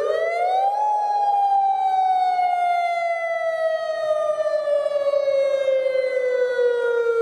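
Outdoor tornado warning siren sounding a wail: its pitch climbs quickly over the first second, then falls slowly and steadily for about six seconds.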